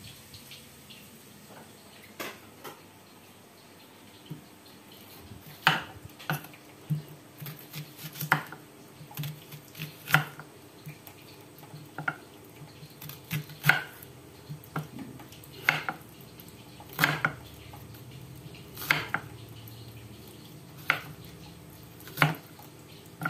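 Kitchen knife slicing an onion on a wooden cutting board: sharp knocks of the blade meeting the board, irregular at about one or two a second, starting about five seconds in.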